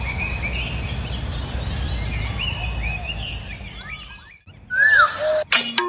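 Birds chirping in an outdoor rural ambience, with a low rumble of wind on the microphone and a steady high-pitched whine underneath. The ambience fades out about four seconds in, a few louder bird calls follow, and music starts just before the end.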